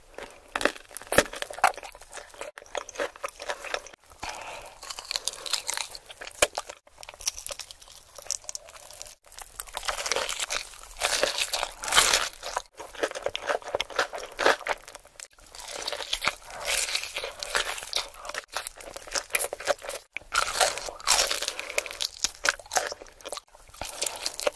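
Close-miked ASMR eating: crunchy bites and chewing of crisp food, a dense run of crackly crunches that breaks off abruptly several times.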